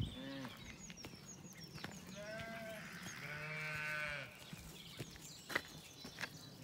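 Sheep bleating: a short, higher bleat about two seconds in, then a longer, lower, quavering bleat lasting about a second. Birds chirp faintly and a sharp click sounds once near the end.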